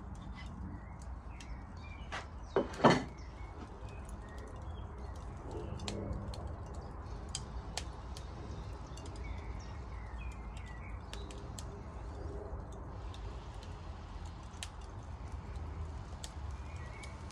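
Outdoor ambience of birds chirping and cooing, over a low steady rumble with scattered sharp crackles. Two loud knocks come close together about two and a half to three seconds in.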